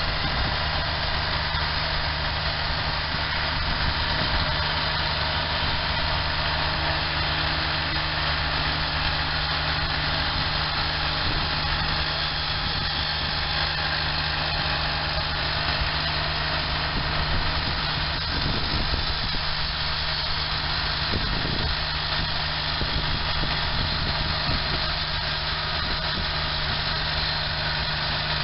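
Engine of a portable band sawmill running steadily as the saw head cuts along a log.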